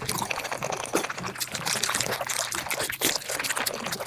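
Mukbang eating sounds played back at five times speed: a dense, continuous run of quick clicks and crackles from chewing and mouth sounds.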